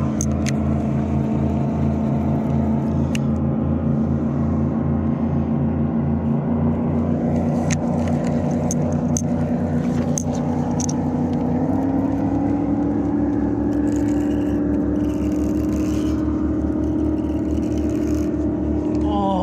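An engine running steadily under load with an even low pulsing, its pitch stepping up slightly about twelve seconds in.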